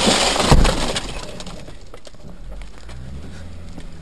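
Sledgehammer blows smashing a police car's windscreen: a heavy strike about half a second in, with the glass cracking and breaking, then dying away.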